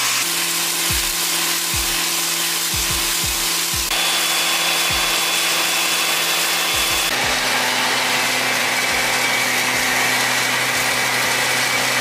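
Background music with sustained electronic tones over deep, quickly falling bass kicks in an uneven pattern and a bright hiss; the tones change abruptly twice.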